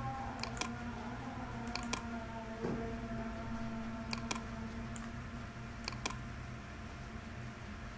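Computer mouse clicks, about eight sharp clicks, several in quick pairs, over a steady low hum.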